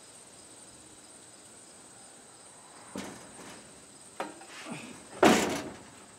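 Crickets chirping steadily and faintly in the background. From about three seconds in come a few knocks and clicks, then a loud short metal clunk about five seconds in, as the engine and transmission are lowered on a shop crane into the car and come down onto the front suspension.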